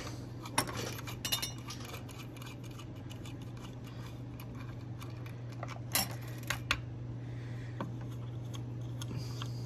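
Small metal clicks and clinks of a guitar fuzz pedal's hardware being handled and loosened during disassembly, scattered and irregular, with a few sharper clicks about six to seven seconds in, over a steady low hum.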